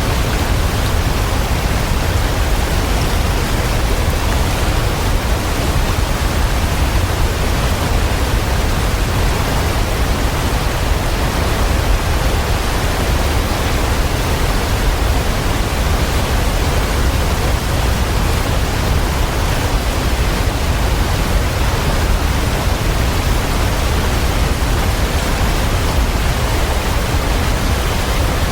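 Waterfall: a steady, continuous rush of falling water, strongest in the low end, with no change in level.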